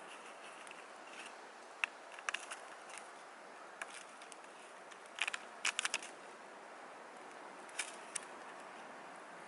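Bonfire crackling: scattered sharp pops over a steady hiss, with a quick run of several pops about five to six seconds in.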